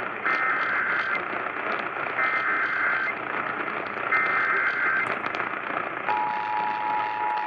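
Emergency Alert System SAME header: three identical bursts of warbling digital data tones, each just under a second long. About six seconds in, the steady two-tone EAS attention signal starts, signalling an alert that is a tornado warning. It is heard through a radio broadcast with hiss and crackle underneath.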